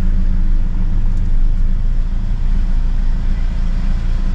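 Engine and road noise heard from inside a moving vehicle's cabin: a steady low rumble.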